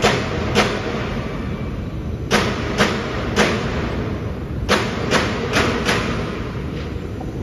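Sharp knocks in a gearbox assembly shop, in clusters of two to four about half a second apart, each ringing briefly, over a steady low rumble.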